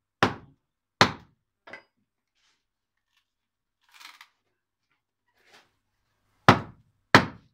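Wooden mallet striking the back of an axe set into a log, driving it along the grain to split rough shingle blanks: two sharp knocks, a faint third, then after a pause two more near the end. A faint rustle of handling wood comes in the pause.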